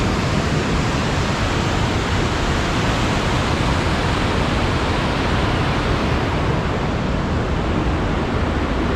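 Whitewater mountain creek rushing over rock rapids, a steady, unbroken hiss and rumble of water; slightly less hiss near the end.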